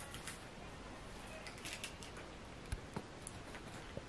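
Quiet room with faint handling noises: a few soft clicks and light rustles, the clearest two close together near the end.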